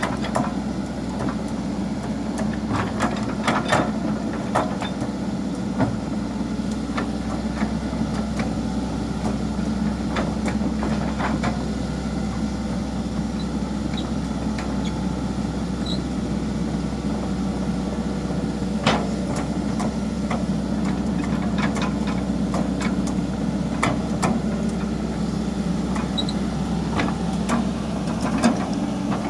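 Tracked excavator's diesel engine running steadily as the machine travels on its steel tracks, with scattered sharp metallic clanks from the tracks and undercarriage.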